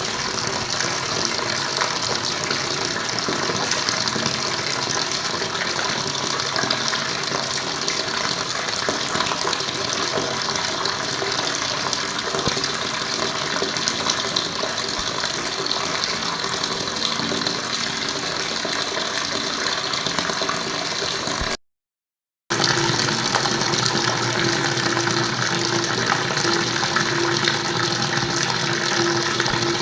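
Running water flowing with a steady rushing sound. About two-thirds of the way through it cuts out completely for about a second, then comes back a little louder.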